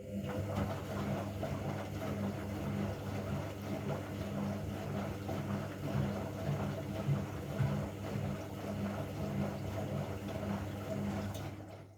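Washing machine running: a steady motor hum with a low drone and a rushing, rattling layer above it, fading out near the end.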